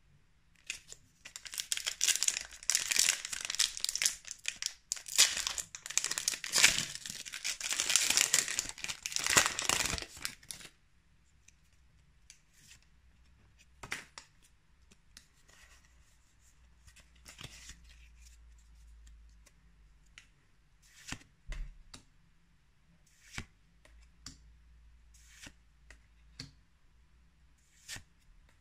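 Foil wrapper of a Pokémon booster pack being torn open and crinkled for about ten seconds. After that the cards are slid and flipped by hand, with scattered soft clicks.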